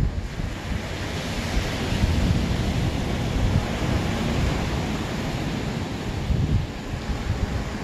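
Ocean surf washing on the shore, with wind buffeting the microphone in gusty low rumbles.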